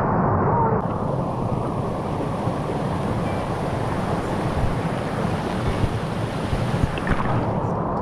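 Small waterfall cascade pouring into a pool, a steady rush of falling and churning water heard close at water level.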